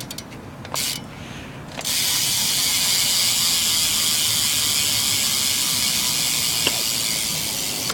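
BMX Profile rear hub freewheeling as the back wheel spins: the pawls ratchet in a dense, high-pitched buzz. A short burst about a second in, then a steady buzz from about two seconds in, easing slightly near the end.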